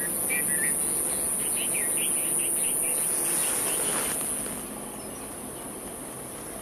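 Outdoor night ambience: a steady, high-pitched insect trill, typical of crickets, that fades about four and a half seconds in. Over the first three seconds there is a run of short, quick chirps.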